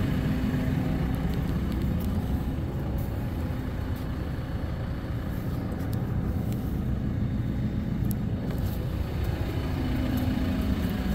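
A steady low engine drone, an idling engine running on without change in speed.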